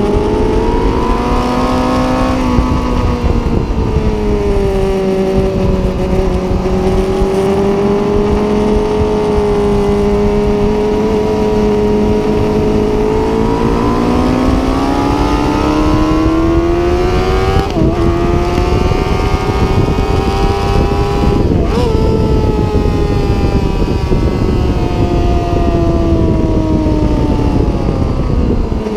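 Onboard sound of a sportbike engine running hard at high revs. The pitch falls, holds, then climbs steadily under acceleration, breaks twice in quick succession about two-thirds of the way through, and falls again near the end as the bike slows.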